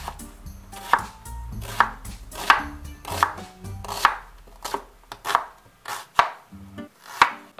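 Kitchen knife slicing a red onion on a wooden cutting board: a sharp knock of the blade through the onion onto the board about every 0.7 s, some ten cuts in a steady rhythm.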